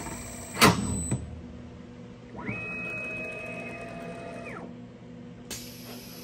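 A CNC router's axis drives moving the spindle during an automatic tool change. There are two sharp clacks in the first second, then a steady whine that ramps up and back down over about two seconds as the spindle travels. A hiss starts near the end.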